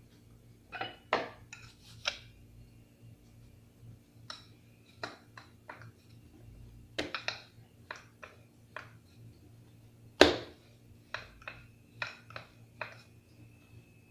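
Irregular sharp taps and knocks of hands and a rolling pin on a marble worktop as bun dough is pressed and rolled flat, with one loud knock about ten seconds in.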